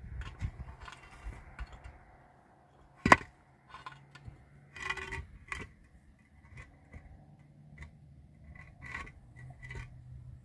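Irregular knocks, clicks and scraping of hard objects being handled, with one sharp, loud knock about three seconds in and short bursts of clatter around the middle and near the end.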